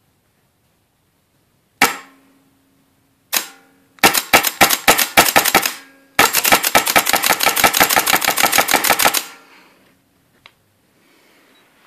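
WGP Autococker paintball marker with a Trilogy upgrade being dry-fired on gas with no paint loaded: two single shots about a second and a half apart, then two long strings of rapid shots, several a second, that stop about nine seconds in. Each shot is a sharp crack with a brief ring.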